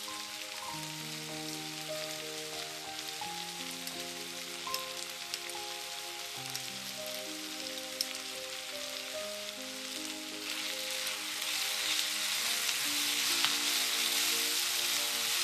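Food sizzling as it fries in a pan, with scattered crackles, growing louder about ten seconds in. Gentle background music of long, held notes plays throughout.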